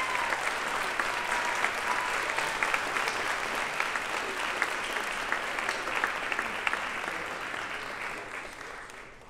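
Audience applauding a band's performance, a dense sound of many hands clapping that fades away over the last second or so.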